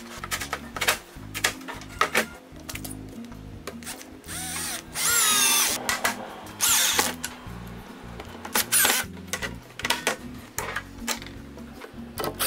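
A cordless screw gun whirring in short runs as it drives screws into the drawer's metal runners and fittings, the longest run about halfway through. Clicks and knocks of metal fittings and panels being handled run between the runs.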